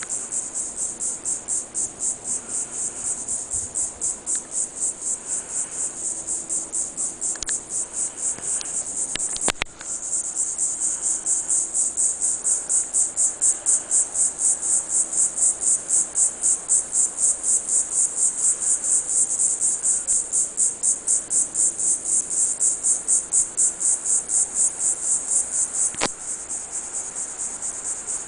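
Diceroprocta viridifascia cicada calling: a loud, high-pitched buzz pulsing a few times a second. A brief click breaks it just before 10 s, and it comes back louder; another click near 26 s is followed by a quieter stretch.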